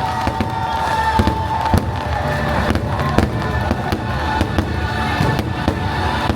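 Fireworks going off in quick, irregular bangs over the fireworks show's music playing loudly on the park's speakers, with a long held note in the first couple of seconds.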